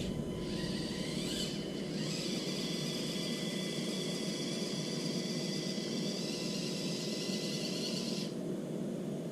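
Axial SCX24 Deadbolt micro crawler's small electric motor and gears whining steadily as it climbs a ramp; the whine cuts off about eight seconds in as the truck stops.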